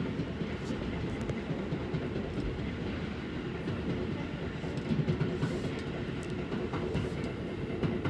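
Commuter train running, heard from inside the car: a steady rumble of wheels on the rails with a few clicks over the rail joints.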